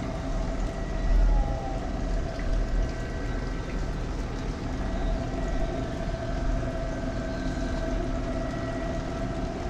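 A steady mechanical hum, several held tones over a low rumble, with a brief louder low rumble about a second in.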